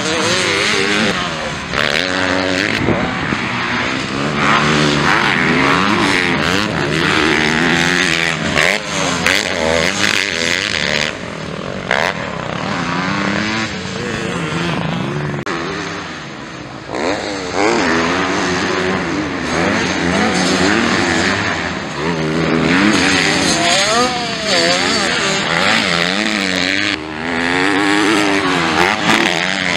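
250cc MX2 motocross bikes racing, their engines revving up and down again and again as the riders work the throttle and shift through climbs, corners and jumps.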